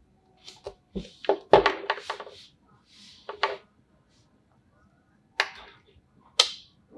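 Handling noise from a wristwatch on a rubber strap with a metal deployant buckle: a cluster of clicks, knocks and rattles about a second in, a couple more knocks around three and a half seconds, and two sharp clicks near the end.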